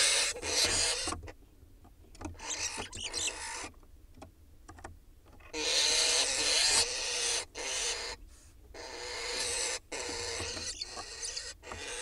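Barn owl hissing, a series of about six harsh, rasping hisses, each about half a second to two seconds long, with short pauses between them. This is the owl's defensive hiss at mynas mobbing the nest box.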